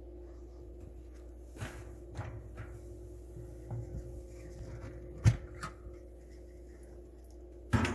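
A few clicks and knocks of parts being handled inside a Miele dishwasher, such as its racks and the filter at the bottom of the tub. The sharpest knock comes a little past halfway, over a faint steady hum.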